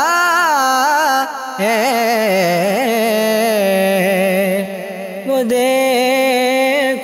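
Male voice singing an Urdu naat, drawing out a long wavering, ornamented phrase with no words clearly sung. The line drops briefly about a second and a half in and again around five seconds in.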